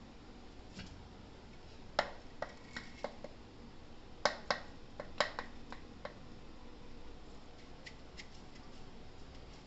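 Light clicks and knocks of a steel tumbler and spice container against a steel pot as ground spice is tipped and scraped into the panipuri water. There are about ten sharp taps over a few seconds, one followed by a brief metallic ring.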